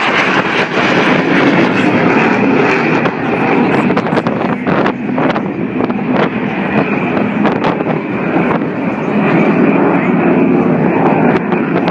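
Aeroplane engine noise, loud and fairly steady throughout, with wind buffeting the microphone in short sharp knocks.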